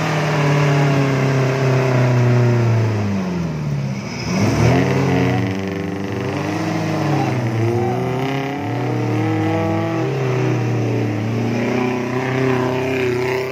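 Small Suzuki off-road 4x4's engine revving hard and unevenly as it churns through deep mud. The revs sag sharply and pick up again about four seconds in, then rise and fall a few more times.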